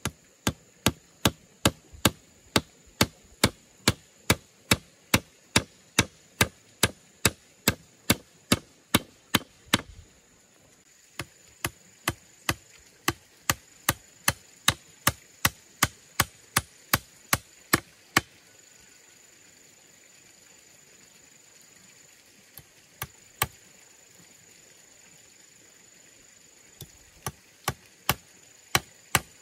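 Claw hammer driving nails into bamboo poles: quick, even blows about two a second, in runs broken by pauses of a few seconds.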